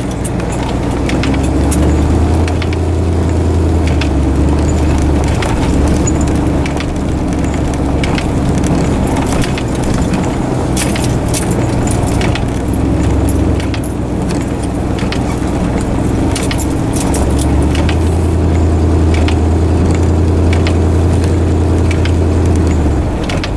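Riding inside a vehicle on the move: a steady low engine and road drone that swells and eases a few times, with frequent small rattles and jingles of loose items.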